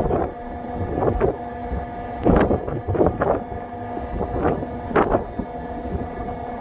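Wind buffeting the microphone in irregular loud gusts on top of a Siemens SWT-2.3 wind turbine nacelle, over a steady machinery hum from the running turbine.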